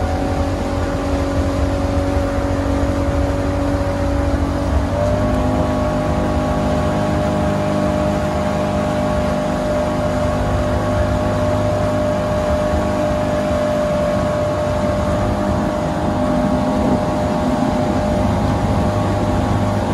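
2000 Sea-Doo Speedster jet boat's engine running steadily under way, its pitch stepping up slightly about five seconds in and then holding, over a low rush of wind and water.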